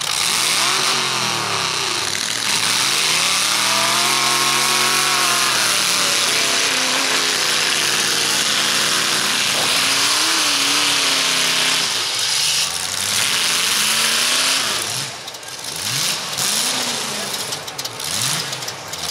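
Pickup-truck engines in a demolition derby revving hard and dropping back, the pitch sweeping up and down in long swells, then in quicker rises and falls near the end, over a steady hiss.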